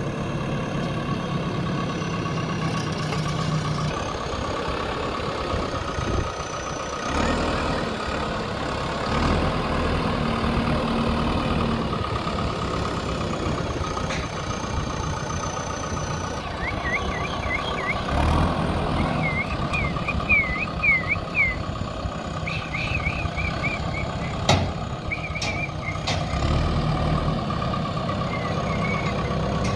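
Diesel engine of a JCB 3DX backhoe loader running under load as it carries a concrete culvert pipe slung from its front bucket, with a steady whine over the engine rumble. Short high chirps come in the second half, and a few sharp knocks come about two thirds of the way in.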